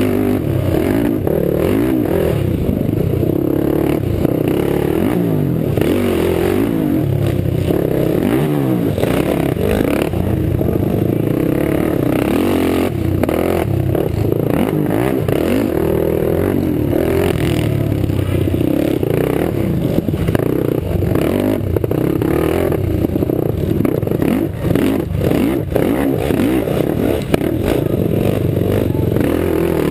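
Racing quad (ATV) engine revving up and down as it is ridden hard around a dirt track, heard from the rider's helmet camera, with other quads racing close alongside.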